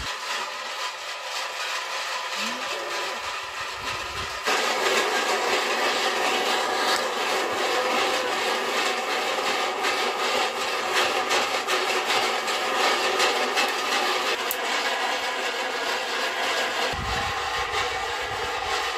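Maize kernels roasting in an iron pan over a wood fire, rattling and crackling as they are stirred and scraped with a metal scraper: a steady, dense stream of fine clicks that gets abruptly louder about four and a half seconds in.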